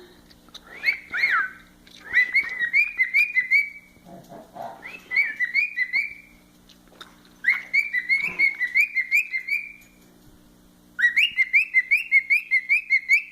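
Male cockatiel whistling in five short phrases of quick repeated chirping notes, several notes a second, a sign that the bird is excited.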